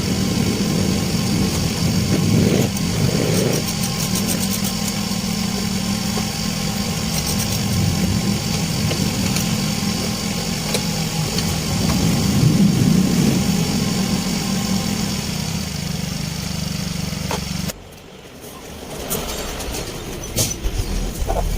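A Yamaha Mio i 125 scooter's 125 cc single-cylinder four-stroke engine, freshly top-overhauled, running steadily, then switched off about 18 seconds in.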